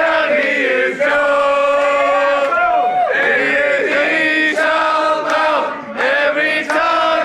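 Male voices singing a chant in long, held notes.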